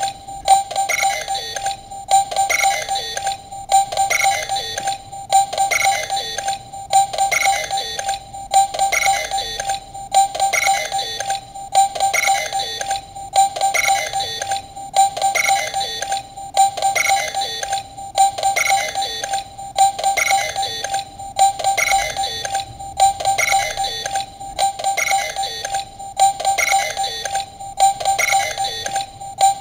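Bandai DX Mega Ulorder transformation-toy standby sound playing on a loop: a short electronic jingle repeating about once a second, with a steady high tone running through it.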